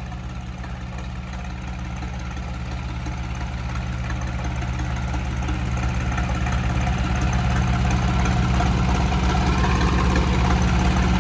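Sonalika DI 35 tractor's three-cylinder diesel engine running steadily, growing gradually louder.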